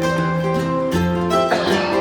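Background music played on plucked strings, with notes changing about every half second to a second.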